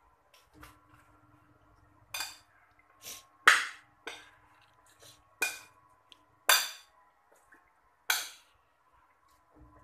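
Metal spoon clinking and scraping against a ceramic bowl while mixing raw chicken pieces with turmeric, in about seven separate short strokes.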